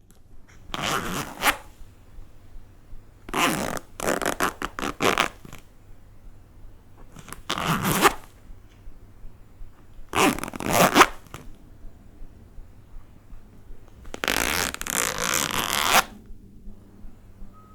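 A zipper being zipped open and closed over and over: about five separate rasping pulls of the slider, a few seconds apart, the last one longest at about two seconds.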